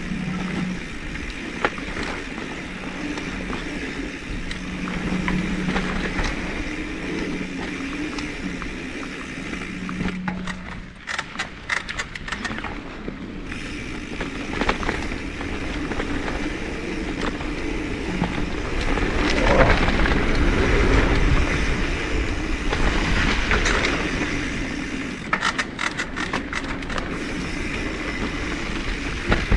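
Mountain bike riding down a dirt trail: steady tyre noise with clicks and rattles from the bike over rough ground, and wind rushing on the camera's microphone. It swells louder for a few seconds past the middle.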